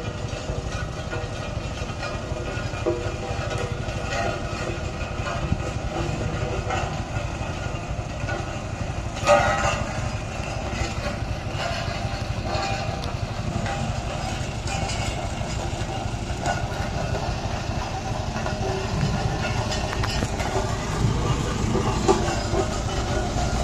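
Road roller running: a steady heavy rumble with rattling and clatter, and a sharp clank about nine seconds in.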